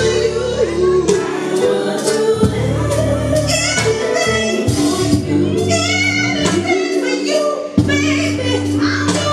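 Music: a song with sung vocals over an instrumental accompaniment.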